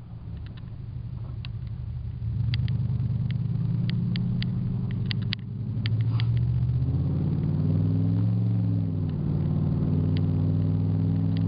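A truck's engine pulling hard from inside the cab, getting louder in two steps and rising then dropping in pitch near the end as it shifts. Sharp clicks and knocks from the cab over bumps come through in the first half.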